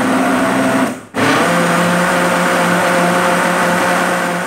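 Kitchen blender with a plastic jar running on a thick liquid mousse mix, stopping briefly about a second in, then starting again and running steadily.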